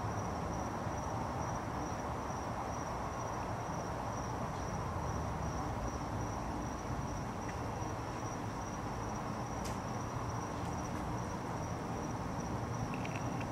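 A steady, unbroken high-pitched insect trill over constant low background noise, with one faint click about ten seconds in.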